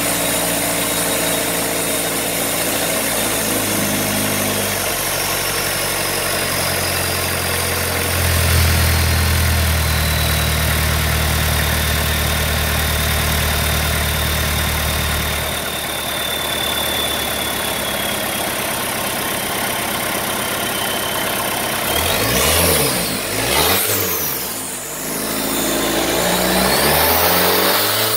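Isuzu diesel engine running on a run-in stand during break-in. It holds several steady speeds in turn, dropping about 4 seconds in, rising and getting louder about 8 seconds in, and dropping again a little past halfway. Near the end it is revved up and down several times.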